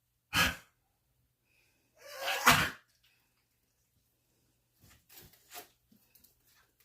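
A dog sneezing twice: a short sneeze, then a louder, longer one about two seconds in. A few faint short noises follow near the end.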